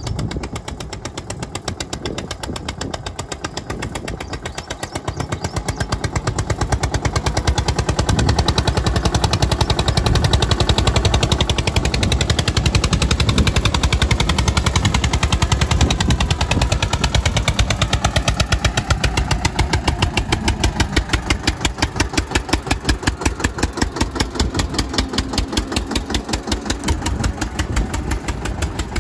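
Eicher 242 tractor's diesel engine chugging with a rapid, even beat as it drives through mud and standing water, growing louder as it approaches and stays close.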